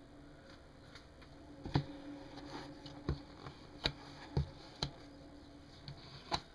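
About six sharp knocks and clicks, unevenly spaced, from hands and an icing knife being handled while buttercream is smoothed on a cake, over a faint steady low hum.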